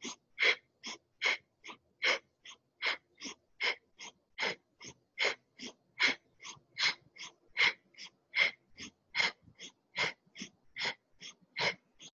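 Rapid, rhythmic breathing: short, forceful inhales and exhales at about two and a half breaths a second, each breath paced to a quick arm raise or lowering in a Kundalini yoga exercise.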